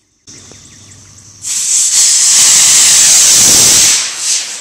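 Homemade potassium nitrate–sugar rocket motor in a PVC pipe casing. A quieter fizz from the lit fuse gives way, about a second and a half in, to the motor igniting with a loud, steady hiss that lasts about two and a half seconds and then fades as the rocket climbs away.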